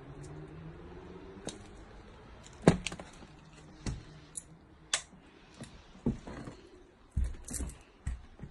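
Footsteps and handling noise of someone walking through a hallway: scattered sharp clicks and knocks, the sharpest about a third of the way in, with duller thumps near the end.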